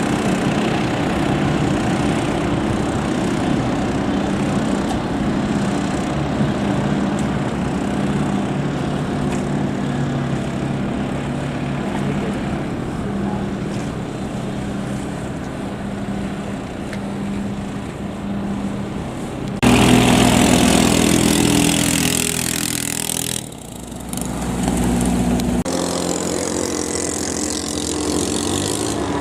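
Small 7 hp long-tail racing-boat engines running hard, a steady, buzzing drone whose pitch wanders. About two-thirds of the way through, the sound jumps abruptly louder and brighter, dips for a moment, then settles to another engine drone.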